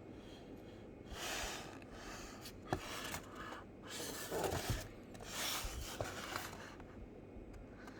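Rustling and scraping of packaging being handled, in several bursts of about a second each, with a sharp click about three seconds in.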